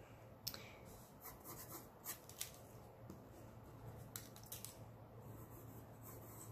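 Faint scratching of a mechanical pencil drawing on sketchbook paper, in short irregular strokes, some sharper than others.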